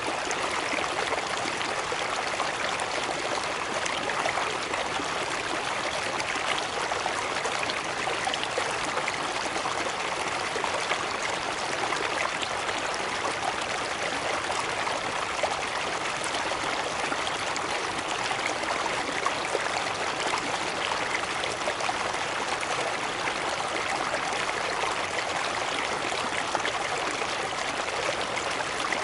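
Running water of a stream cascade, a steady rushing and splashing that does not change.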